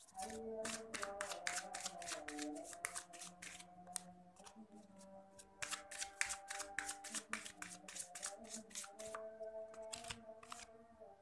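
A deck of tarot cards being shuffled in the hands, a rapid run of card flicks that stops near the end, over soft background music with long held notes.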